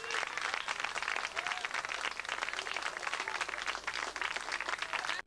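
Audience applauding: a dense patter of many hands clapping, with a few voices calling out over it.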